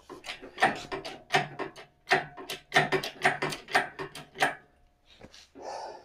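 A quick, even run of sharp clacks, about four or five a second, stopping a little over four seconds in, followed by a short scraping rustle near the end.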